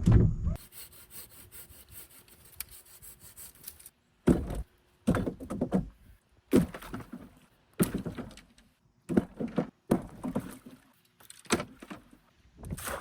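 Firewood being handled: a loud knock at the start, then a string of short woody knocks and scrapes roughly a second apart as branches are worked and gathered.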